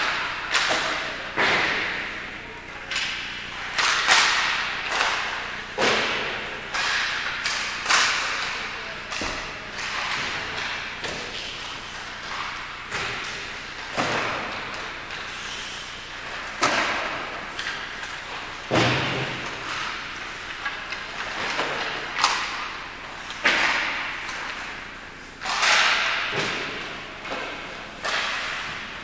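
Irregular thuds and knocks echoing in a large hall, one every second or two, with scattered voices in between.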